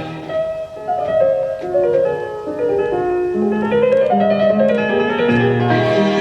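Classical music with piano and strings played back from a Sony WM-WE7 Walkman for an audio check.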